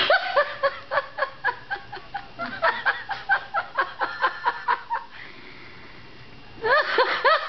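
High-pitched laughter, likely a woman's, in quick ha-ha pulses about four a second, stopping about five seconds in. Near the end come a few short rising-and-falling vocal sounds.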